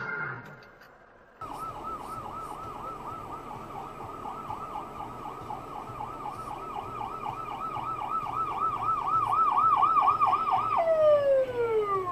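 Emergency vehicle siren on its fast yelp setting, warbling up and down about three times a second and growing louder as it nears. Near the end it switches to a single steady downward wail.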